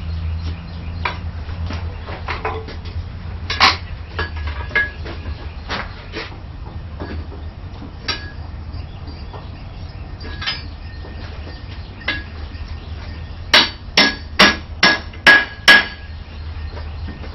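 Hand hammer striking steel on an anvil to bend a bar around a bending pole: scattered single blows, then a quick run of about eight heavy blows near the end, each followed by a faint ring. A low steady hum sits underneath.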